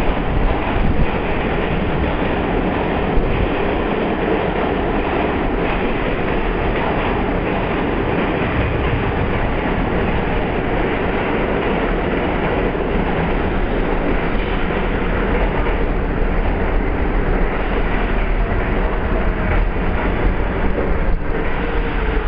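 R46 subway train pulling into an underground station, its cars running past the platform with a loud, steady rumble. Near the end a falling whine comes in as the train slows.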